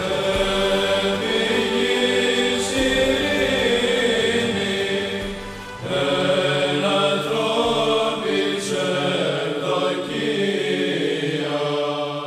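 Choir chanting in long held notes, the style of Orthodox Byzantine chant. The chant drops away briefly about six seconds in, resumes, and starts to fade near the end.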